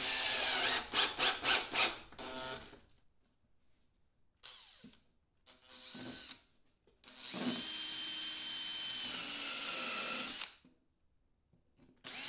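Makita 18V cordless drill boring holes through plywood in several separate runs. It starts with a stuttering run of quick pulses, then two short blips, then a steady run of about three seconds with a whine, and a fresh run begins near the end.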